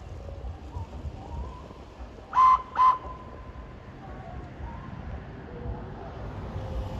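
Locomotive whistle giving two short toots about half a second apart, over a low background rumble.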